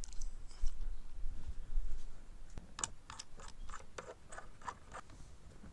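A run of small sharp clicks and scrapes, about three or four a second for two seconds, as a sportbike's mirror is fitted to its plastic front fairing by hand, over a low rumble of wind on the microphone.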